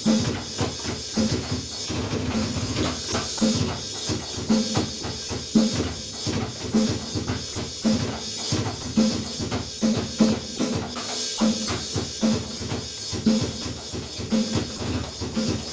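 A drum kit is being played in a steady, busy beat, with dense drum strikes under a constant wash of cymbals.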